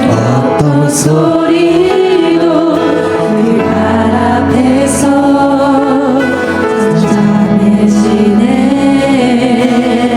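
Korean worship song: singing of a slow melody over instrumental accompaniment.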